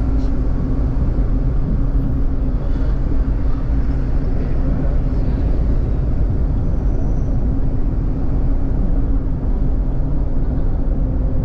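Car engine and road noise heard from inside the cabin while driving, a steady low drone with an even hum.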